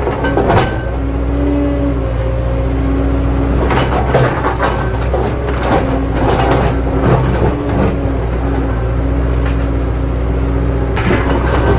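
Toy vehicles being handled, with scattered clicks and knocks, the densest about four to seven seconds in, over a steady low hum and held tones that change every second or two.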